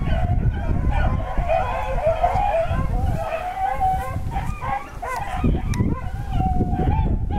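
A pack of rabbit dogs baying on a rabbit's track: several voices overlap in a steady chorus that eases briefly about five seconds in. A low rumble runs underneath.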